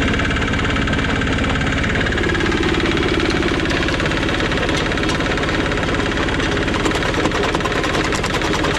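PE-100x150 (4x6-inch) jaw crusher running, belt-driven by a small engine with a steady drone. From about seven seconds in, rapid cracking joins it as rock is crushed between the jaws.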